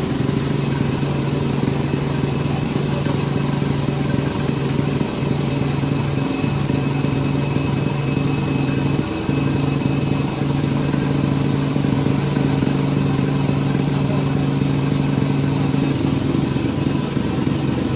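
Sawmill machinery running steadily: an engine-like drone holding a constant pitch and level.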